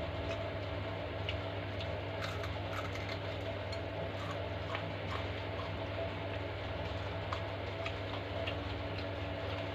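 Close-miked eating sounds: chewing chicken balado, with irregular small mouth clicks and crunches over a steady low hum.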